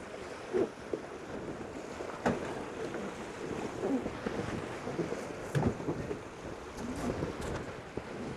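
Wind buffeting the microphone and water rushing past a Tornado catamaran sailing fast in strong wind, with a few sharp knocks and clicks from the boat.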